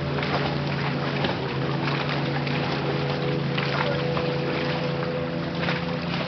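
Motorboat engine running steadily, a constant low drone with an unchanging pitch.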